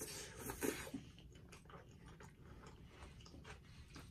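Close-up eating sounds: pasta slurped into the mouth in the first second, then soft chewing and small wet smacks and clicks.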